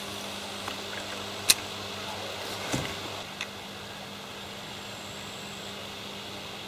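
A steady low hum with a faint high whine above it, with one sharp click about a second and a half in and a softer knock a little after.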